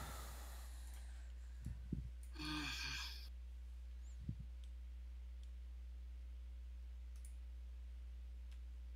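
Quiet steady low hum with a few faint mouse clicks, and a person's short sigh about two and a half seconds in.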